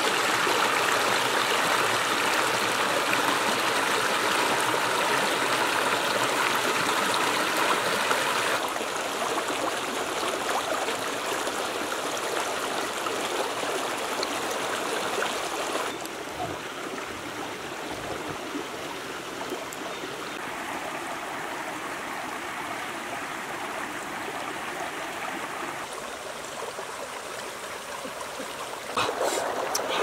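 Shallow rocky stream running over stones and small rapids, a steady rush of water that steps down in level about 9 and 16 seconds in. A few sharp knocks come in near the end.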